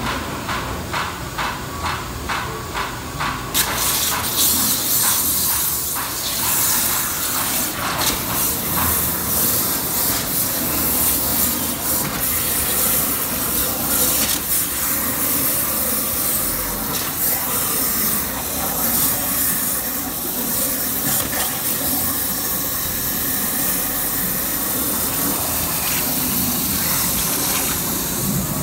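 Waterjet Italia DX 510-5X CNC waterjet cutting a sheet: after a few seconds of rapid, even ticking, the ultra-high-pressure water jet comes on about three and a half seconds in as a loud steady hiss, wavering slightly as the head cuts.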